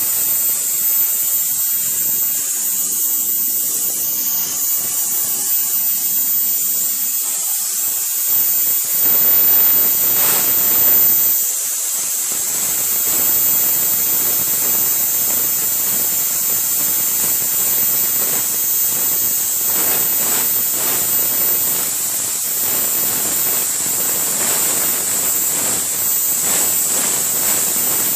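Manual plasma cutter torch running on a CNC table: a loud, steady hiss with a high whine. It turns rougher about eight seconds in and dips briefly near twelve seconds.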